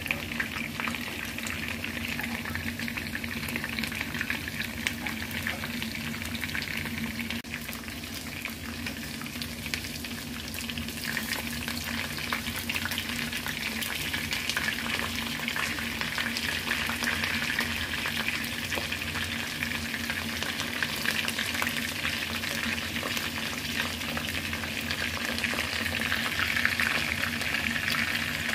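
Breaded chicken fillets shallow-frying in hot oil in a frying pan: a steady sizzle thick with fine crackling, growing a little stronger partway through.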